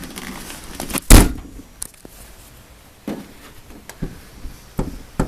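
1989 Acura Integra hatch slammed shut about a second in, catching on its latch now that the latch has been shimmed with washers. A few lighter knocks follow.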